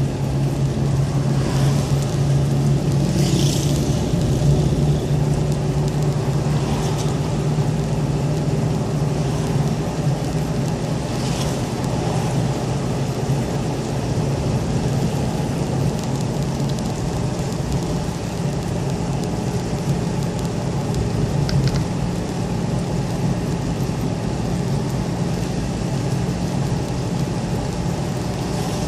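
Car driving on a wet road, heard from inside the cabin: a steady engine hum and tyre noise, with a few brief swishes now and then.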